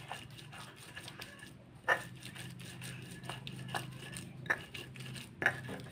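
Stone pestle grinding spice paste on a flat volcanic-stone mortar (ulekan and cobek): a run of quick scraping, grinding strokes of stone on stone, with a few sharper knocks about two seconds in and near the end.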